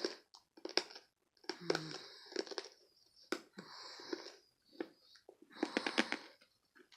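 Hard cough drops being crunched between the teeth close to the microphone: clusters of sharp cracking bites, with hissy breathing between them.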